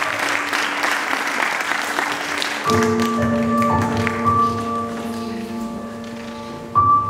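Audience applauding for the first few seconds, then music starts suddenly about a third of the way in: slow held chords, changing to a new chord near the end.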